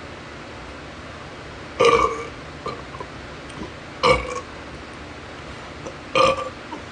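A person burping three times, about two seconds apart, each burp short and loud, brought on by drinking a carbonated energy drink.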